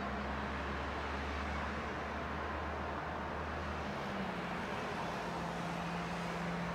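Steady distant road-traffic noise with a low engine hum; the deepest hum fades about four seconds in while a higher drone carries on.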